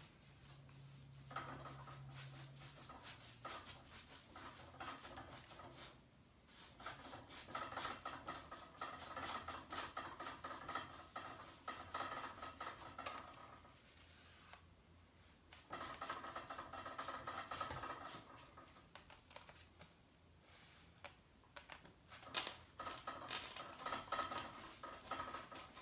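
Wide two-inch brush scrubbing watery acrylic paint onto a stretched canvas: soft, scratchy strokes in bouts of a few seconds with short pauses between.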